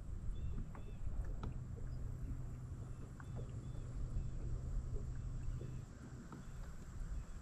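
Water slapping and knocking against the hull of a small boat, with a steady low hum from about one and a half seconds in until near the end, and a few faint high chirps.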